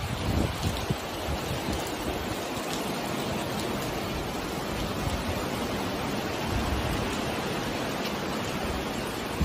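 Heavy rain pouring on a paved street, a steady dense hiss.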